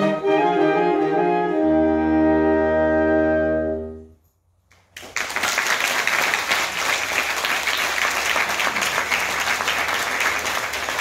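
Saxophone ensemble ending a piece on a long held chord, which cuts off about four seconds in. After a second of silence the audience breaks into steady applause.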